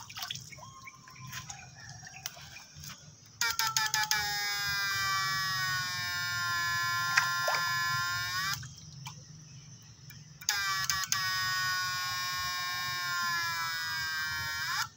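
Homemade transistor PAC fish shocker (setrum ikan) switched on twice, its inverter giving a loud, high buzzing whine full of overtones, about five seconds and then about four seconds, with a few clicks as each burst starts. The pitch sags slightly as each burst runs, the circuit working under load through its rod electrode in the pond water.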